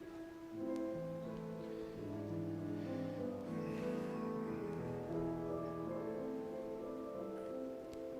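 Slow instrumental music on a keyboard, held chords of sustained notes beginning about half a second in.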